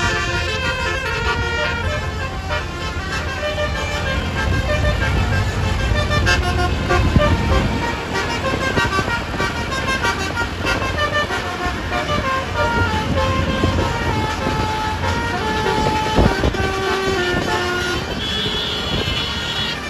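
Tour bus telolet horn, a multi-tone Basuri horn, playing a run of changing melodic notes over the low rumble of bus engines.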